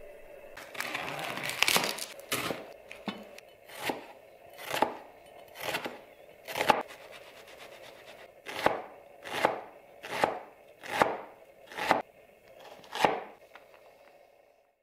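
Nakiri knife chopping an onion on a cutting board: a quick flurry of cuts about a second in, then about a dozen separate chops roughly one a second, each a short crunch through the onion ending in a tap of the blade on the board, with a brief pause midway.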